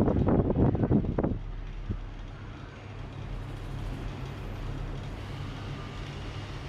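Rapid percussive hand strikes of a face massage, a quick run of slaps that stops about a second and a half in, leaving a steady low hum.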